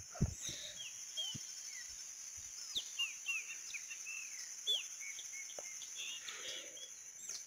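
Birds calling in the trees: many short, quick falling chirps, over a steady high-pitched buzz.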